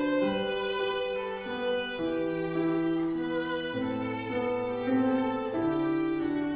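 Violin playing a slow melody of long held notes over piano accompaniment, an instrumental passage with no voice.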